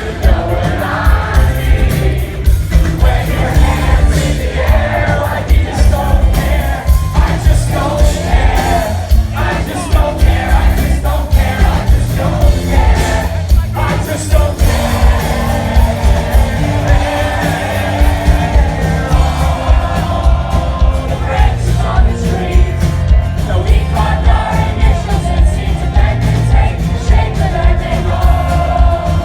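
Rock band playing live with a singer, loud and bass-heavy.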